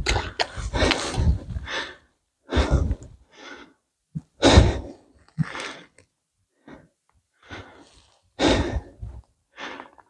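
A man breathing heavily, with about eight rough, noisy breaths spaced roughly a second apart and short silent gaps between them.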